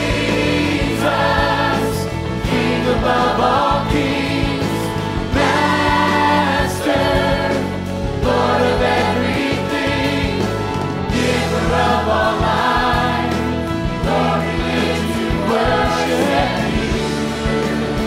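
Large mixed choir singing an upbeat gospel song with a live band of piano, drums and bass guitar.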